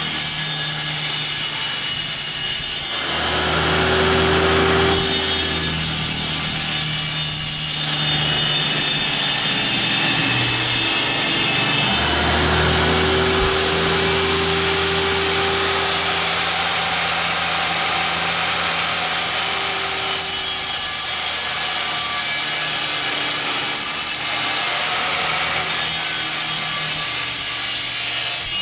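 Power saw cutting through wooden boards: a steady cutting noise with a motor hum that strengthens in two long passes, one a few seconds in and a longer one from about twelve seconds.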